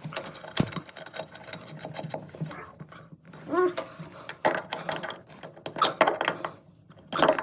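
Plumbing fittings under a bathroom sink being worked by hand and with tools while a water supply line is replaced: irregular metallic clicks, knocks and scrapes.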